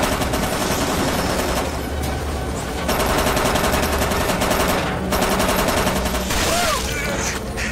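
Film sound effects of a door-mounted machine gun firing long rapid bursts: one at the start and a second from about three seconds in, with a short gap between, over a steady low rumble.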